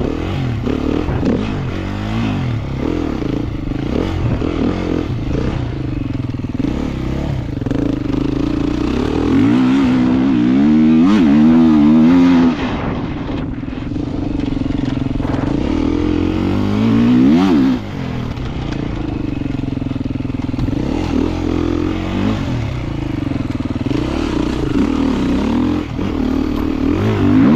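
Dirt bike engine revving up and down as it is ridden off-road. The revs climb hard about ten seconds in and again near seventeen seconds, and each climb is cut off sharply.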